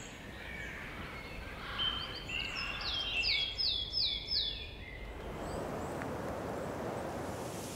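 A songbird singing one short phrase: a few level notes, then about five quick falling notes. Faint steady outdoor background noise sits underneath.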